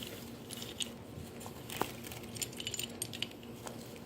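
Faint clicking and clinking of small hard pieces being handled: the pieces of a broken mermaid figurine being fitted back together. One sharper tick comes a little under two seconds in.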